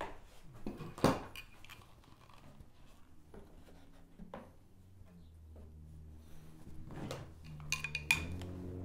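Wood and spring clamps being handled: a sharp knock about a second in, scattered clicks, then a quick cluster of clicks and knocks near the end as a spring clamp is set on the board. Background music with low held notes comes in from about halfway.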